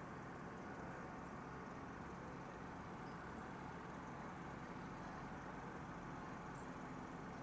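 Crane truck's engine running steadily, a continuous low hum with no change in speed.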